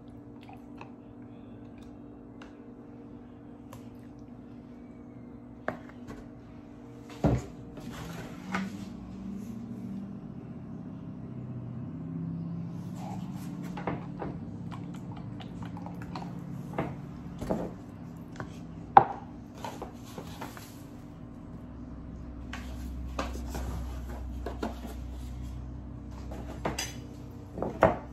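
Kitchenware being handled: scattered clinks and knocks of jugs, measuring cups and a utensil being picked up and set down around a plastic mixing bowl, with soft rustling between them, over a steady low hum. The sharpest knock comes about two-thirds of the way through.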